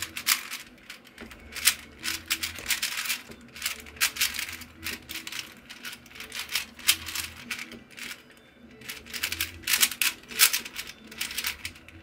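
Plastic 4x4 puzzle cube being turned quickly by hand: rapid, irregular clacking and clicking of the layers as they rotate.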